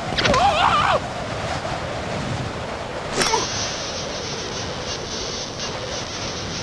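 Brief squeaky cartoon-character squeals, then a steady rushing noise like wind, with a short sharp swish about three seconds in.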